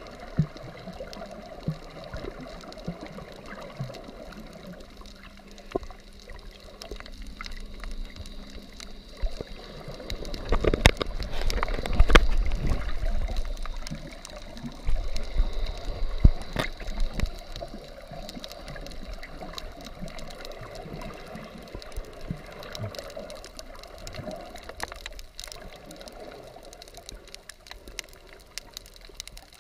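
Underwater water noise heard through a GoPro's housing: a steady muffled wash with scattered sharp clicks, swelling louder with sloshing and a low rumble about ten to fifteen seconds in.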